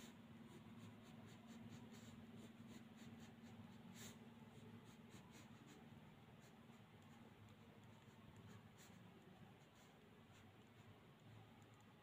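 Faint scratching of a pen on paper as it draws short strokes and lines, with light ticks from the pen tip. A low steady hum sits underneath.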